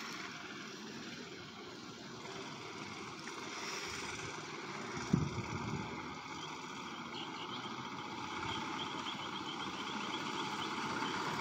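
An 8 hp snowblower engine on a minibike, silenced by a Thrush Turbo car muffler, running quietly at a distance and getting louder as the bike comes back closer. There is a brief thump about five seconds in.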